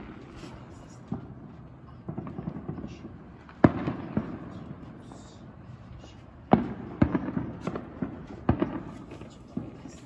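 Fireworks going off: irregular sharp bangs, the loudest about a third and two-thirds of the way in, each trailing off in an echo.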